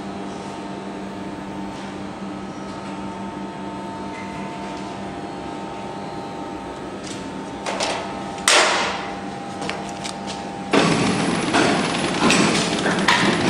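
Drip coffee bag packaging machine running with a steady hum and a few fixed tones; two sharp knocks about eight seconds in, then from about eleven seconds a much louder rough noise with irregular knocks.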